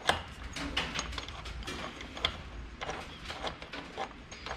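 Irregular metallic clicks and clinks from a wrench and axle hardware being worked on a bicycle's rear axle.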